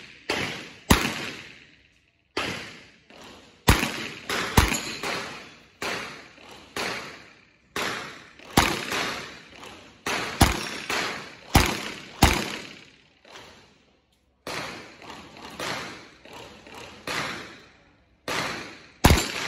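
Gunshots from a Smith & Wesson 929 Jerry Miculek 9mm revolver. They come in a long, uneven string of single shots and quick pairs, each a sharp crack with a fading echo, with brief pauses between groups.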